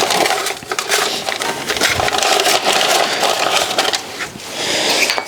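Close handling noise from sorting new rear brake pads and their hardware: a dense crinkling rustle with scattered small clicks, dipping briefly about four seconds in.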